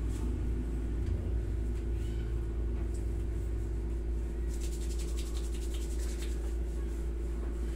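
Hands rubbing and kneading a knee and leg during a massage. A quick run of light rubbing strokes comes about halfway through, over a steady low hum.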